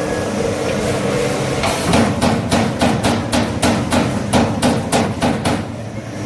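CNC turret punch press punching sheet metal: a quick run of about fifteen sharp punch strokes, roughly four a second, starting a couple of seconds in and stopping near the end, over a steady machine hum.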